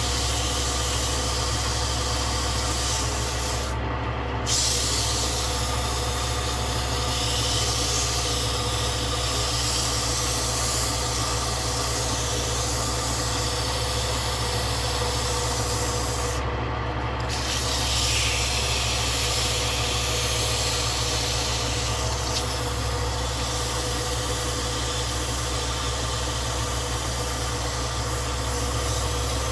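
A woodworking power tool running steadily, with a constant low hum and a hiss that swells and fades as it works the wood. The hiss breaks off briefly twice.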